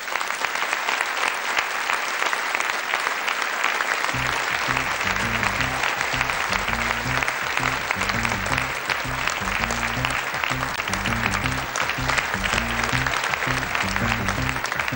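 Theatre audience applauding steadily. About four seconds in, music with a repeating bass line starts and plays under the applause.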